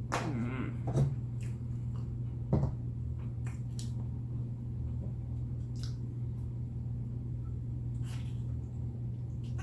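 Mouth sounds of someone eating chicken wings: scattered soft clicks, smacks and chewing, the loudest about a second in and again about two and a half seconds in, over a steady low hum.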